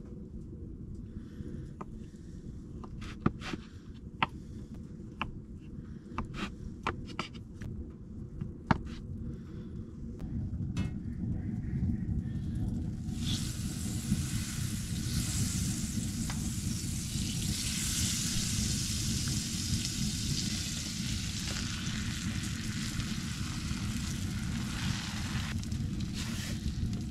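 Breakfast pizza frying in a cast iron pan. Scattered clicks and knocks over a steady low rumble come first; about halfway through a loud sizzle starts and keeps on.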